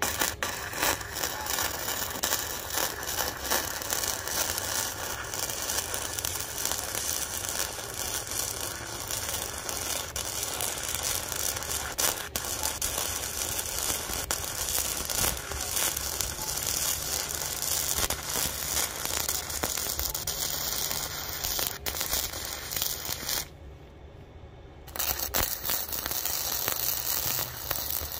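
Flux-core arc welding on steel with a Harbor Freight wire-feed welder: the arc crackles steadily, stops for about a second and a half near the end, then strikes again.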